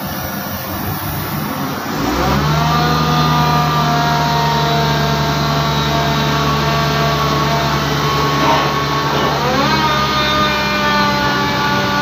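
Heavy engine machinery running hard on a drilling rig. About two seconds in, a deep steady drone sets in; the engine revs up then and again near the end, each time its pitch easing slowly back down.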